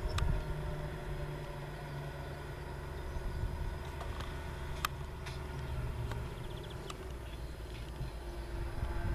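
Engine of a Challenger self-propelled crop sprayer running steadily as it drives across the field spraying, heard from a distance as a low drone. A few sharp clicks come through in the middle.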